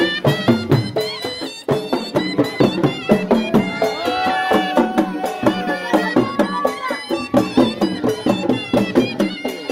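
Live Baloch lewa music: a drum beaten in a fast, steady rhythm under a melody that bends and glides, played on a reedy wind instrument such as the surnai.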